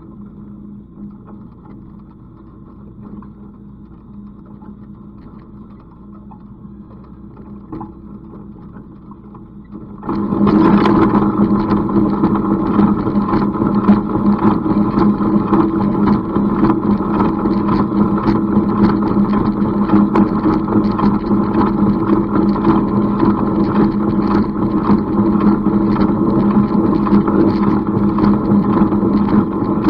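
An engine running steadily: muffled at first, then much louder and brighter from about ten seconds in, and holding that level to the end.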